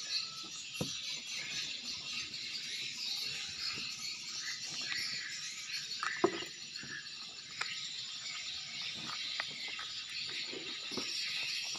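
Small scattered metal clicks and taps as a split ring and treble hook are worked onto a soft frog fishing lure by hand, the sharpest click about six seconds in, over a steady high background hiss.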